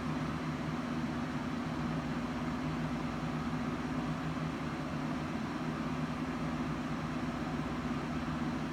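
Steady low mechanical hum with a constant drone, unchanging in level and pitch.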